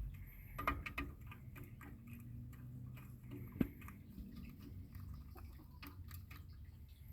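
Hens pecking at feed: irregular sharp taps and clicks, with one louder knock about three and a half seconds in.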